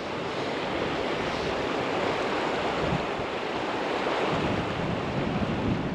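Steady rushing noise of a flowing river mixed with gusty wind, swelling slightly and then easing.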